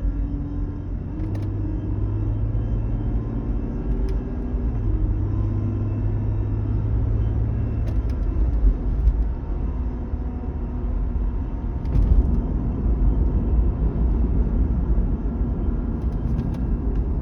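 A 2008 Volvo V70 on the move: a steady low rumble with a droning hum and a few light clicks, recorded to capture the metallic grinding noise the car is making.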